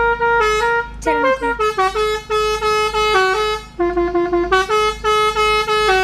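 Telolet basuri multi-trumpet air horns playing a remote-triggered tune: short held horn notes stepping up and down in pitch several times a second, with brief gaps between phrases.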